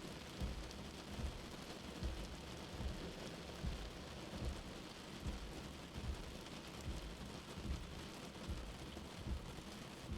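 Steady rain with a soft, low heartbeat thump repeating evenly, about five beats every four seconds.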